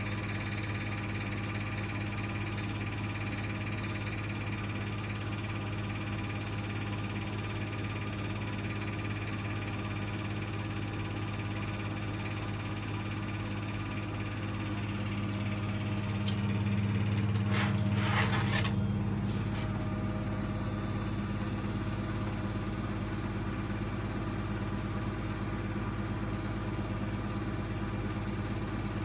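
Bosch WVH28360GB washing machine spinning: a steady low mechanical hum. It swells briefly with a short, harsher burst of noise about two-thirds of the way through. This is the noise during the spin that the owner finds odd.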